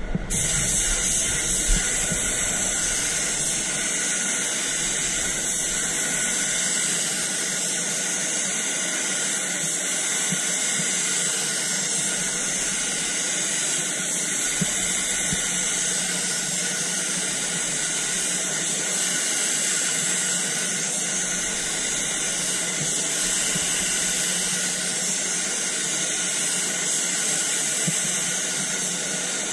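Gravity-feed spray gun hissing steadily as it sprays white direct-gloss paint onto a car panel, in a spray booth.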